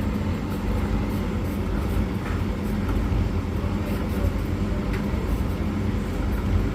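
Beko washing machine early in a Cottons 90 wash and Hoover condenser tumble dryer running together: a steady low mechanical hum with a faint steady tone and a few faint clicks.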